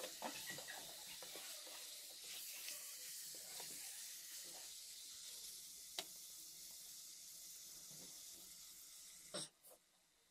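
Minced chicken keema frying faintly in a metal pot, sizzling as a wooden spatula stirs and scrapes it. There is one sharp click about six seconds in, and the sound cuts out near the end.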